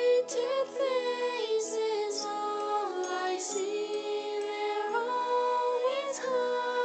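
A slow song: a high voice sings long, drawn-out notes that slide between pitches, with sharp 's' sounds on some words, over a soft, sustained backing track.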